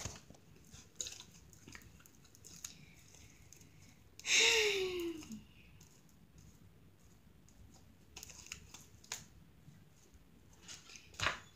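Purple glitter slime being squished and pulled in the hands: scattered small sticky clicks and crackles. About four seconds in comes a louder sound, about a second long, whose pitch falls.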